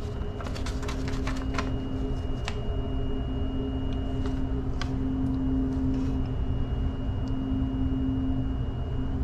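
Steady machinery hum with a constant low drone, as from equipment running nearby, with a few light clicks and rustles of a paper card being handled in the first couple of seconds.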